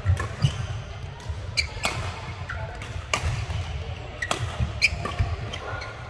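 Badminton rally: sharp racket hits on the shuttlecock about once a second, with players' footsteps thudding on the court floor and play from neighbouring courts, echoing in a large sports hall.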